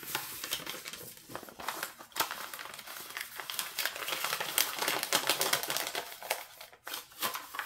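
Packaging crinkling and rustling as it is handled, with many small crackles.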